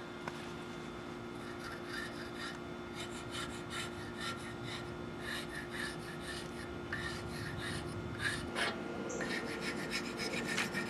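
Plastic scraper scraping stripper-softened, blistered paint off a metal motorcycle frame in quick, repeated rasping strokes.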